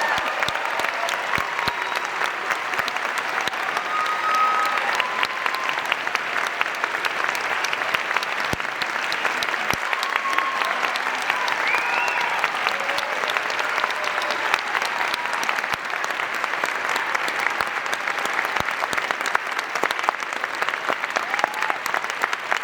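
Audience applauding steadily after an orchestra piece ends.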